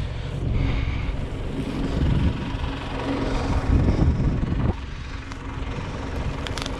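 A tractor engine idling steadily, with wind rumbling on the microphone. A single knock comes about two-thirds of the way through, after which the rumble is quieter.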